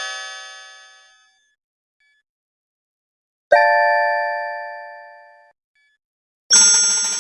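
Bell-like ding sound effects: a chime fading out, then a new struck ding about three and a half seconds in that rings and dies away over a couple of seconds. Near the end a harsher, noisy burst with high ringing tones begins.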